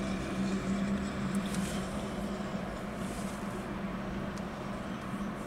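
Steady low hum of a 2006 Toyota Camry's engine idling.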